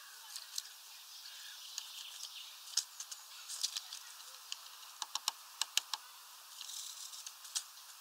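A great tit at a bird feeder: scattered sharp taps, with a quick run of about seven near the middle, over faint background birdsong.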